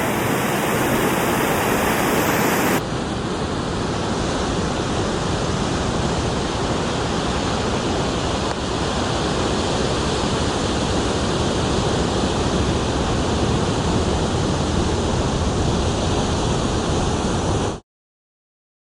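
Steady rushing noise of ocean surf and wind on the microphone. The sound changes abruptly about three seconds in and stops dead shortly before the end.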